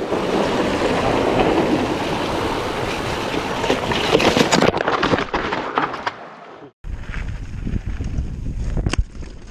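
Mountain bike riding fast over a wooden boardwalk: tyres rattling and clattering over the slats, with rushing wind on the rider-mounted camera's microphone, and the clatter thickest about four to five seconds in. It breaks off briefly, then another ride follows with lower wind rumble and a single sharp click near the end.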